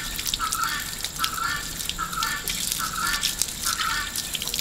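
Water from an outdoor tap running and splashing onto grass as a processed quail carcass is rinsed under it. A repeated call sounds in the background about every half second.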